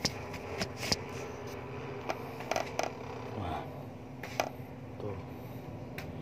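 Scattered light clicks and taps from a person moving through seated exercises, over a steady low hum.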